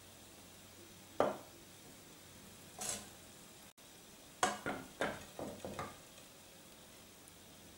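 Metal ladle knocking and scraping against a ceramic serving plate and pot as rice is served: one sharp knock about a second in, a short scrape near three seconds, then a quick run of five or six knocks after about four and a half seconds.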